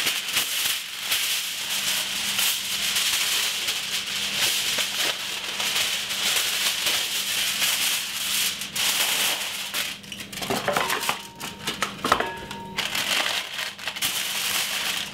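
Aluminium foil being crinkled and crimped around the edges of a roasting tray to seal it, a steady crackling rustle.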